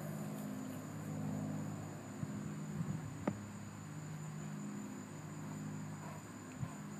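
Steady high-pitched drone of insects, with a low steady hum under it and a few faint clicks.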